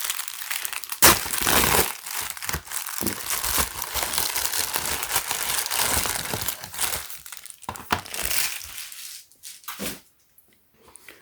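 Plastic packaging crinkling and tearing as it is pulled open by hand: a dense crackle with sharp snaps, loudest about a second in, thinning out and stopping near the end.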